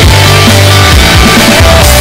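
Loud background music with a heavy bass line and a driving beat.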